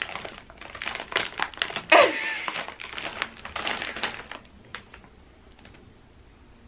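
Plastic snack-chip bag crinkling and crackling as it is handled and held open: a rapid run of sharp crackles that dies away about four and a half seconds in.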